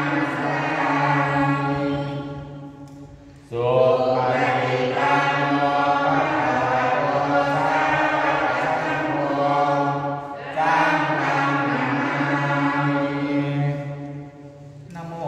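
A man chanting a Thai prayer into a microphone, held on one steady low pitch in long drawn-out phrases. There is a short break about three and a half seconds in and another near the end.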